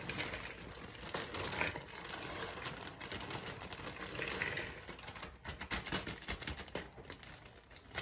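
Plastic bag of pre-shredded coleslaw mix crinkling as the shredded cabbage is tipped and rustles into a bowl: a dense run of small, irregular crackles and clicks.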